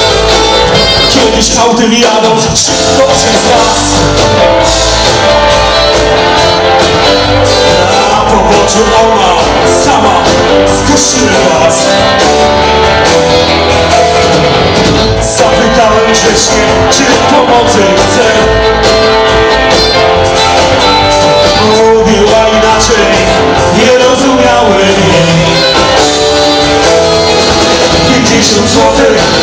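Live blues band playing: electric guitars, keyboards, bass and drums, with a lead line over the band.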